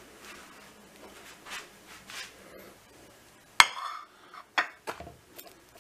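A ceramic plate set down on a stone countertop: one sharp clink with a short ring a little past halfway, then a few lighter knocks as it is nudged into place.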